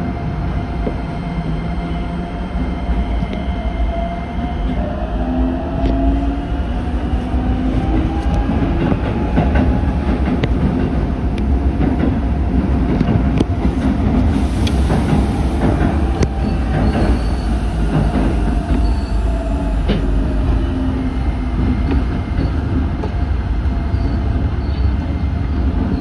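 Keikyu electric train running, heard from its rear cab: wheels clacking over rail joints and points under a steady rumble, with a motor whine that rises in pitch as it gathers speed and then eases down a little.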